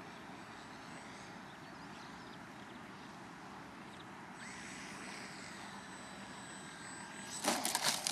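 Faint engine whine of a radio-controlled scale Cessna 182 model in flight. It is a thin tone over a steady hiss, sagging slightly in pitch over a few seconds. Near the end comes a burst of loud crackling clicks.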